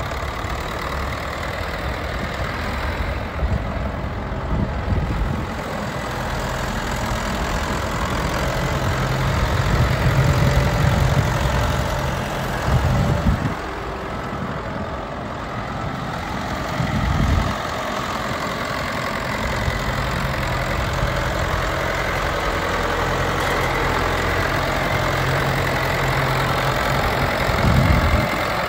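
Ford 7710 4WD tractor's diesel engine running as the tractor is driven about, with the engine note loudest about a third of the way in. A few short louder low rumbles break in near the middle and the end.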